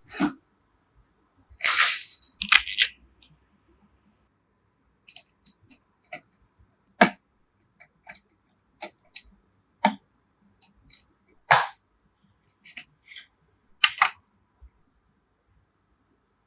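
Computer parts being handled and fitted together: irregular sharp clicks and knocks of hard plastic and metal, with a short rustling, scraping burst about two seconds in.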